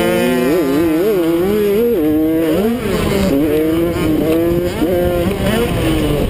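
Two-stroke Kawasaki KX85 motocross engine at race speed, its pitch dipping and climbing again several times as the throttle is worked and gears change, then holding high near the end.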